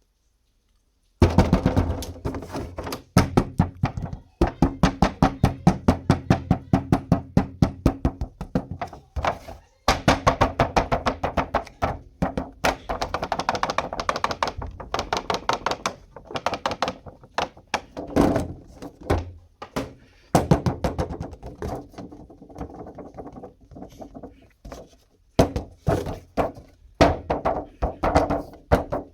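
Quick runs of sharp plastic clicks and knocks, several a second, broken by short pauses, as plastic toys are handled.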